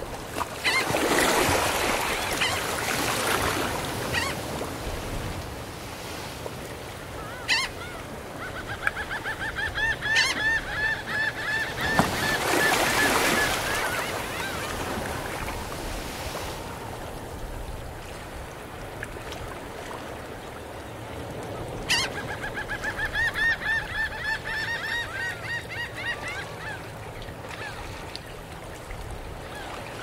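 Gentle surf washing up a sandy beach, swelling twice, while gulls give two long runs of quick, repeated calls, about a third of the way in and again past two-thirds, with a few sharp single calls between.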